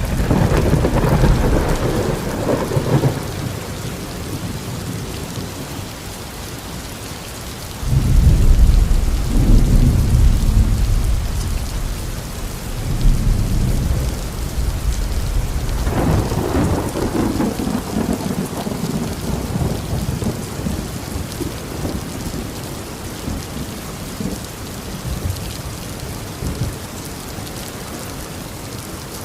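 Thunderstorm: steady heavy rain, with rolling thunder three times. A rumble at the start fades within a few seconds, a sudden heavier one breaks in about eight seconds in and rolls on for several seconds, and another comes about halfway through and slowly dies away.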